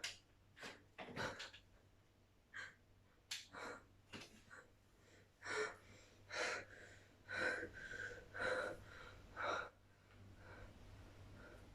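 A woman breathing hard in short, irregular gasps, growing stronger about halfway through, with several heavy breaths about a second apart.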